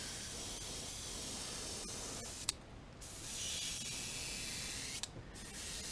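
Airbrush spraying paint in a steady hiss, with two short breaks as the trigger is let off, about two and a half seconds in and again about five seconds in.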